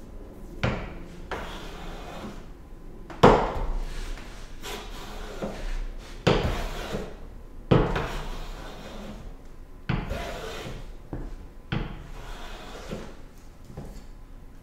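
No. 4½ smoothing plane taking repeated strokes along a maple board, about eight in all, each starting with a sharp scrape and trailing off into a shaving swish. The iron is set for very light shavings and is due for honing.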